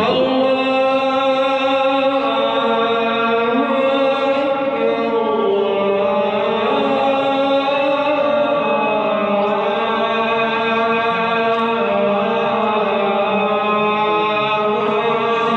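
A voice chanting a slow melody in long, drawn-out held notes.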